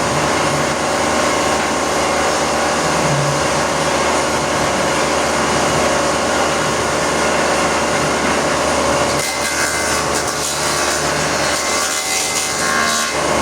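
Woodworking planer machine running steadily. About nine seconds in, a hissing cutting noise joins for about four seconds, as wood is fed through the cutter.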